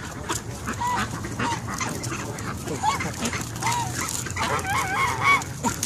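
Geese and ducks calling in short, scattered calls that come thicker near the end, with a plastic bag rustling.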